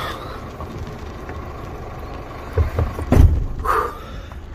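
Scania truck's diesel engine running steadily, heard from inside the cab, with a couple of heavy thumps a little past halfway.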